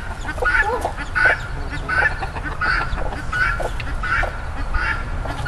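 Guinea fowl calling: a steady series of short, harsh calls, about three every two seconds.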